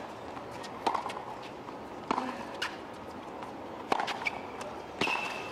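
Tennis rally on a hard court: four sharp pops of the ball off racket strings and court, about one to two seconds apart, over a steady crowd-and-stadium hush.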